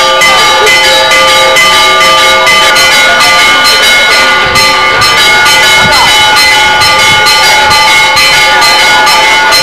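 Church bells pealing loudly, struck again and again in quick succession so that their ringing tones overlap continuously.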